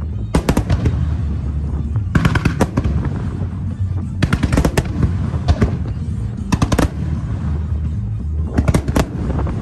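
Aerial fireworks shells bursting in a grand finale: a continuous low booming, with clusters of sharp crackling reports about every two seconds.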